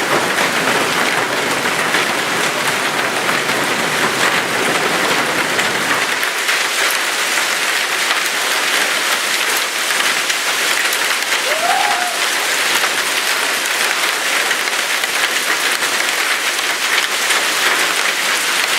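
Hailstorm: hail and heavy rain pelting down in a dense, steady clatter of countless small impacts. The low rumble beneath it drops out about six seconds in.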